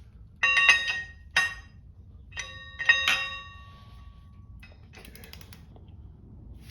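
Metal tools clinking together, several sharp strikes in the first three seconds that each ring on briefly, followed by a quick run of small clicks.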